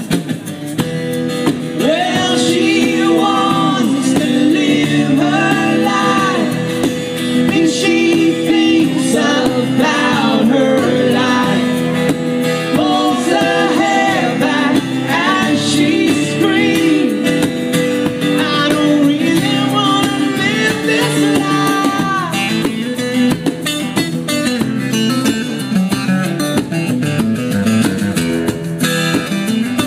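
Live music: a man singing over an acoustic guitar. Near the end the guitar carries on alone.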